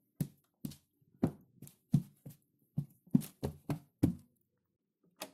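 A quick, uneven run of soft thumps, about two or three a second, stopping about four seconds in, with one more near the end.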